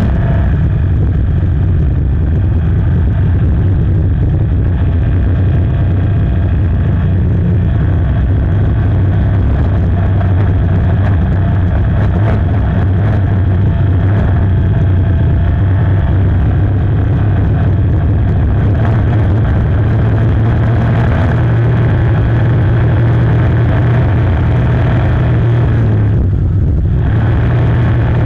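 5.0-litre inboard racing engine of a hydroplane running steadily under way, heard loud from the cockpit. The engine's higher sound dips briefly near the end while its low tone carries on.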